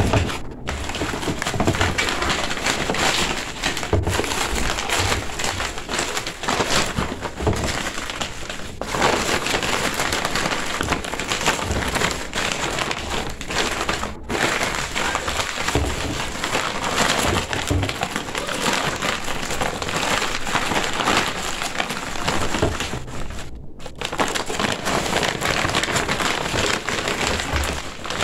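Stiff gele head-tie fabric being folded and handled, a continuous crinkling and rustling with a couple of brief breaks.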